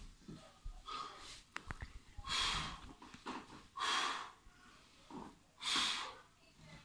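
A man's forceful breaths with each rep of a one-arm kettlebell shoulder press: three loud, hissing exhales about one and a half to two seconds apart, with a few light clicks shortly before the first.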